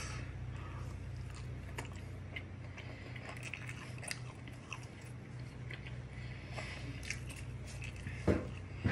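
Close-up chewing and eating sounds as naan dipped in curry is eaten by hand: small wet clicks and soft crunches over a steady low hum, with a single louder thump near the end.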